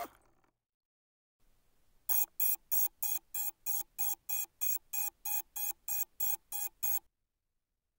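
Electronic beeping: one high note repeated evenly about three times a second, some fifteen beeps. It starts about two seconds in and stops suddenly.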